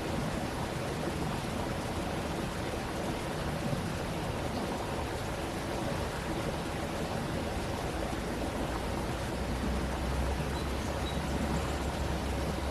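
Stream water flowing and splashing steadily, with a low rumble underneath that grows stronger in the second half.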